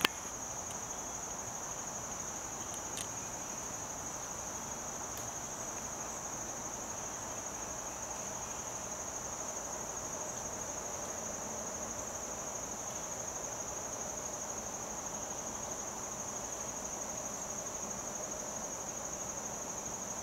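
Steady, high-pitched insect chorus, with a couple of faint ticks about three and five seconds in.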